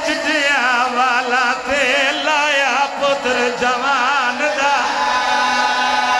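A man chanting a lament into a microphone, amplified, in a wavering, ornamented voice with heavy vibrato, over a steady low held note.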